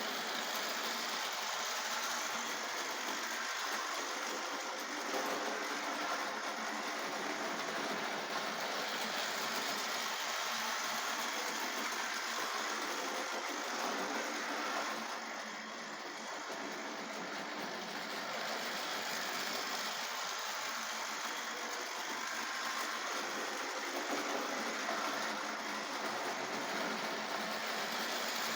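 Tri-ang model railway locomotive running steadily on its track on a test run after repair, its electric motor and wheels whirring and rattling. The sound dips briefly about halfway through, then returns to its level.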